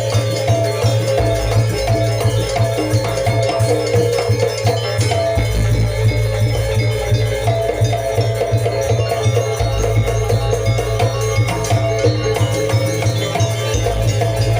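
Loud music of a janger ensemble accompanying the dance: quick repeated metallic notes over a constant low drone and busy percussion, at an even, steady level.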